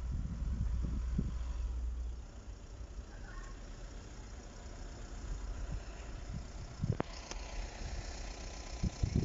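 Low engine rumble, like a motor vehicle idling, that drops away about two seconds in, with a single sharp knock about seven seconds in.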